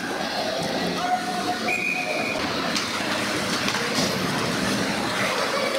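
Youth ice hockey play: a steady scraping of skates on the ice, with scattered sharp clacks of sticks and puck.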